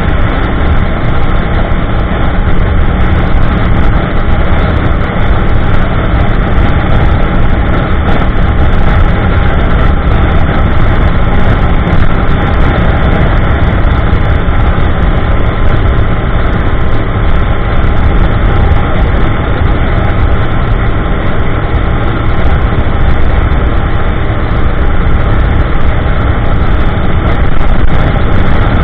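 2015 Yamaha YZF-R1M's crossplane inline-four running at a steady cruising speed through an Akrapovic slip-on exhaust with an MJS link pipe and factory headers, mixed with wind and road noise. The engine note holds level, with no revving or gear changes.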